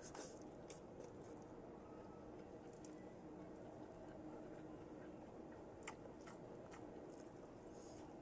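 Close-miked chewing and biting while eating vegetables: soft, wet mouth sounds with a few sharp clicks, the loudest about six seconds in.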